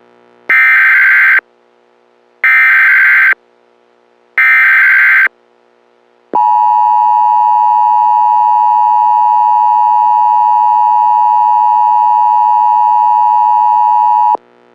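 Emergency Alert System tones: three short bursts of SAME header data, each just under a second long and about two seconds apart. Then comes the steady two-tone attention signal (853 and 960 Hz), held for about eight seconds before it cuts off suddenly, announcing an emergency message.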